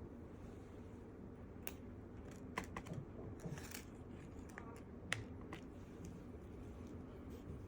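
Ear-cleaning tool scraping and clicking inside an ear canal: about a dozen scattered sharp clicks, the loudest about five seconds in, over a faint steady hum.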